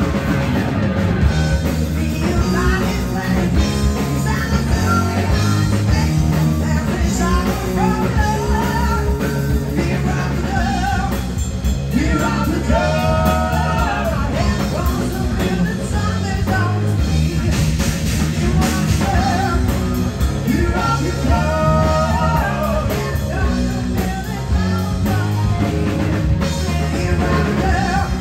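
Live rock band playing electric guitars, bass guitar and drums at full volume, with a man singing into the microphone.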